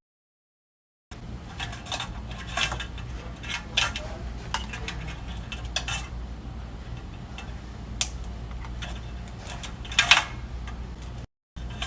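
Metal parts clinking, clicking and scraping as a power supply board is worked free of its wiring and slid out of a metal instrument chassis, over a low steady hum. The loudest clatter comes near the end.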